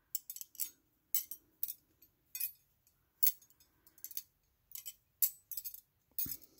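Thin metal bangle bracelets clinking against one another as they are handled, with about fifteen light, high clinks coming irregularly.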